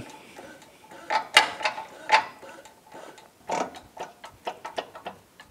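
Hydraulic shop press pressing a bevel gear down onto its shaft in an outboard lower unit, with scattered metallic clicks and a quicker run of ticks in the second half as the press works and the gear is driven into place.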